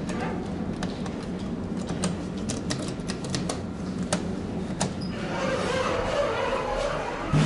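Elevator car-panel push buttons clicking repeatedly under a hand, several sharp clicks clustered in the middle, over a low steady hum. In the last couple of seconds a rushing noise rises and a single thud comes just before the end.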